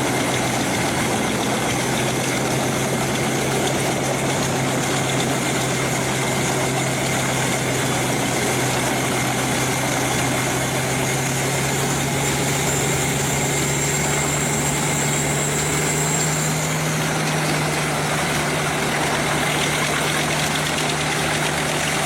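Large engine-driven forestry wood chipper running steadily, its deep engine hum rising slightly in pitch about three-quarters of the way through.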